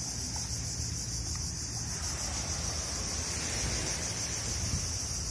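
A steady, high-pitched chorus of insects at dusk, over a low steady rumble.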